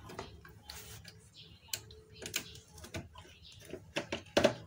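Irregular clicks and knocks as a hand handles wires and parts around a CRT TV's circuit board, about seven at uneven intervals, the loudest just before the end.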